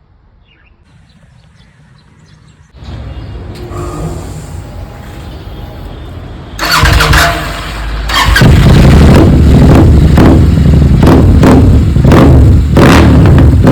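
Royal Enfield Continental GT 650's parallel-twin engine through a Red Rooster aftermarket exhaust with the dB killer removed. Faint at first, it builds to a low rumble about three seconds in and turns loud about seven seconds in, revving with a string of sharp crackles and pops.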